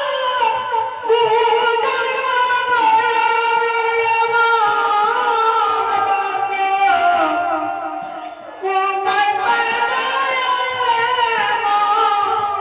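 A woman singing a Bengali devotional kirtan in long held notes that slide between pitches, pausing briefly between phrases a little past the middle.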